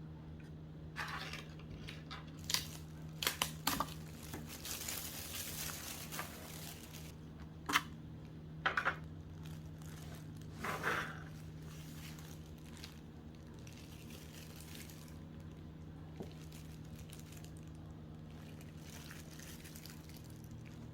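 Packaging being handled during an unboxing: plastic and cardboard rustling and crinkling, with several sharp clicks and taps through the first half, then only a low steady hum.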